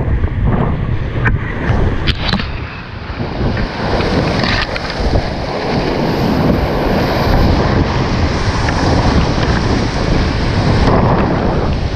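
Whitewater rapids rushing loudly around a kayak, with water buffeting the microphone. A few sharp knocks come in the first few seconds.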